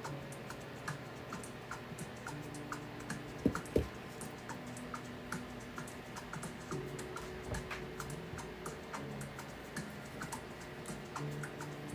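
Quiet background music: held low notes that change every second or two under an even ticking beat, with two sharp knocks about three and a half seconds in.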